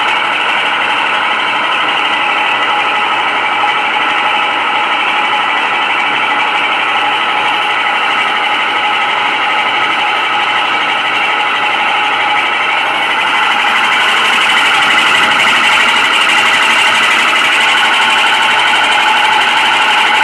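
Hammelmann high-pressure water-jet pump running with a loud, fast mechanical rattle. About thirteen seconds in it grows louder and a hiss comes in on top. This is the abnormal noise the pump makes while the high-pressure gun is operated; in normal condition it runs without this noise.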